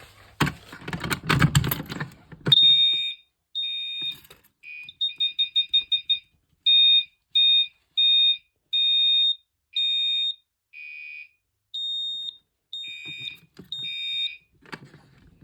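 Clatter and clicks as a Simplex T-bar fire alarm pull station is operated. A few seconds in, the fire alarm horns on a battery-powered demonstration board start sounding a shrill, piezo-like electronic tone in on-off beeps of uneven length, including a run of quick short beeps.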